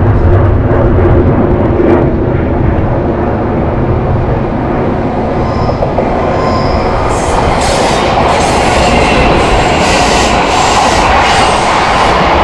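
Train running past at close range, a loud steady rumble of wheels on rails. About halfway through it grows brighter, with repeated clicks as the wheels cross the rail joints.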